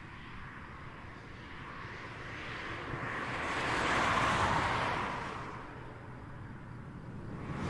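Highway traffic: a single vehicle passes, its tyre and engine noise swelling to a peak about four seconds in and fading away, over a steady hum of more distant traffic. Another vehicle begins approaching near the end.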